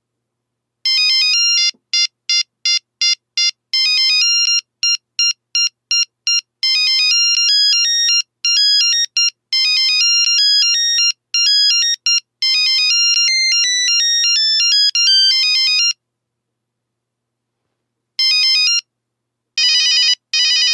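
Nokia 3310 monophonic ringtone: a quick tune of short, clipped beeping notes, one note at a time, lasting about fifteen seconds. After a pause comes a single short note, then a fast warbling trill starts near the end.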